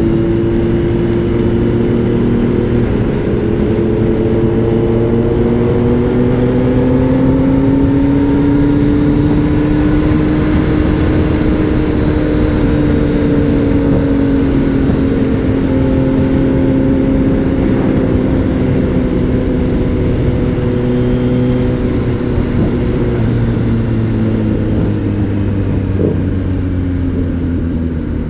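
Kawasaki Z900's inline-four engine running at a steady highway cruise, with wind noise over it. The engine note rises slightly over the first ten seconds or so, then slowly falls, and it drops further near the end as the bike slows.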